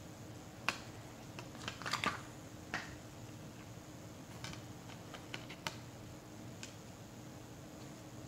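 Hard plastic Blu-ray case being handled: a scattering of small clicks and taps, the loudest cluster about two seconds in.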